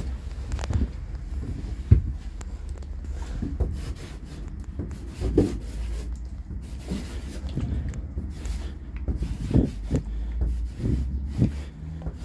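Grog 25 BPI squeeze marker's bristle tip rubbing and scraping across a wall in irregular strokes, over a low rumble of handling noise. A sharp knock comes about two seconds in.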